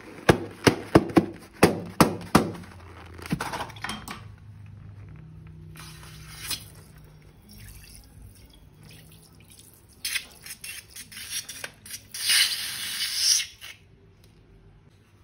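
Wet slime being squeezed and handled, with sticky clicks and drips. A quick run of sharp clicks comes in the first couple of seconds, then scattered clicks later and a short rushing, hissy squelch near the end.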